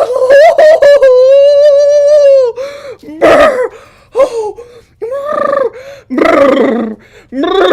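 A person's voice making wordless exclamations. About a second in there is one long held note, followed by several short, separate calls.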